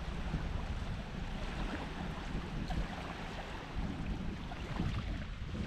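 Wind buffeting the microphone in a steady low rumble, over small waves lapping at the shore.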